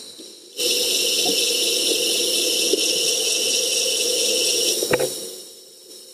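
Small electric motors of a wireless underwater robot running with a steady whine and hiss. They cut out for a moment at the start, start again, and a couple of clicks about five seconds in come before the sound dies away.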